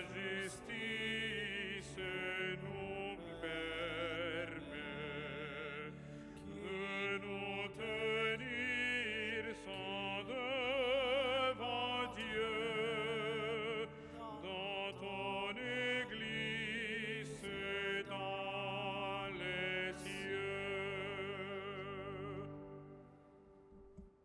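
A solo voice singing a church hymn with wide vibrato over sustained low accompaniment, the offertory music of the Mass; the music fades out near the end.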